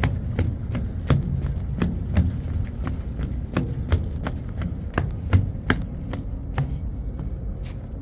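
Footsteps on a concrete walkway: sharp, even steps about three a second that fade out near the end, over a steady low rumble.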